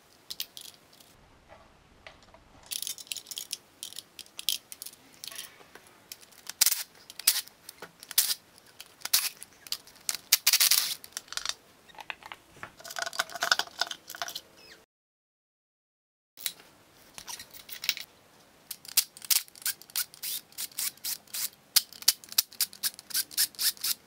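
Metal hand tools clicking and clinking in quick, irregular runs as bolts and fittings are undone on the intake manifold of an Audi 5.2 V10, with the clicks coming faster and more evenly near the end.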